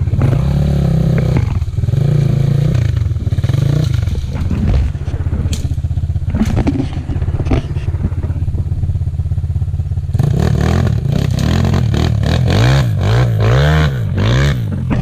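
Dirt bike engine running under throttle, its pitch rising and falling as it is revved and let off. A run of several quick revs in a row comes in the last few seconds.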